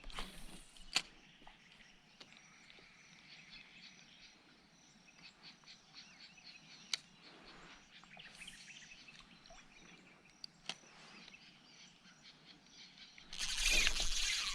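Faint outdoor ambience with distant bird calls and a few scattered sharp clicks. Near the end a louder, noisy rushing sound starts and carries on.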